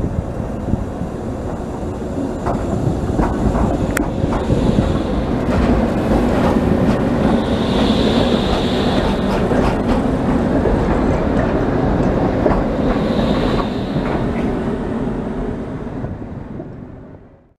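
Trams rolling past on street tracks: a steady rolling rumble that swells and eases, with wheels clicking over rail joints and two brief high squeals about eight and thirteen seconds in. The sound fades out near the end.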